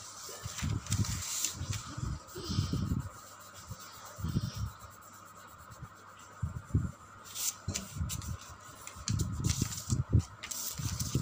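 Colour pencil rubbing and scratching on paper during colouring, with irregular dull knocks and rustles as the sheet and clipboard are handled.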